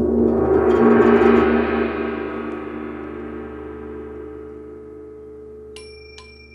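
Large hanging gong played with a soft mallet, its shimmering wash swelling to a peak about a second in, then slowly fading. Near the end a few bright, clear metal chime strikes ring out over the fading gong.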